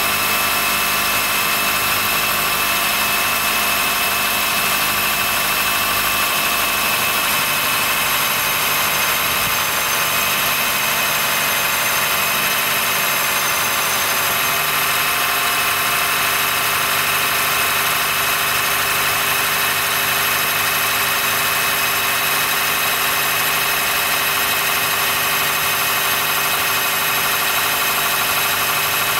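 Honda Fit Hybrid (GP5) making a steady, high-pitched squealing whine from its powertrain in cold weather. The noise occurs below about 10 °C and goes away once the car warms up, and the dealer judged it harmless. A lower steady hum joins about seven seconds in.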